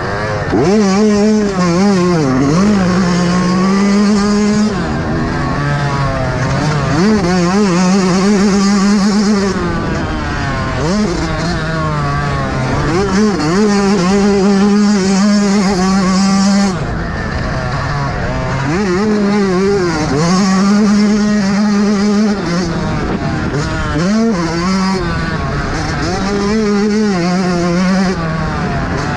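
Yamaha YZ125 two-stroke single-cylinder dirt bike engine ridden hard, heard from on board: the revs climb and hold high, drop off for a moment, then climb again, over and over as the rider works through the gears, with a steady hiss over it.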